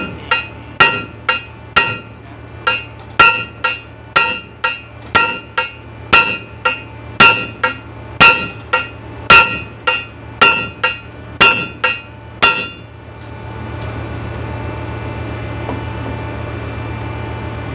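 Hand hammer striking metal about twice a second, each blow ringing, during brake-lining renewal on a ship's mooring winch. The hammering stops about 12 seconds in, leaving a steady low machinery hum with a faint steady tone.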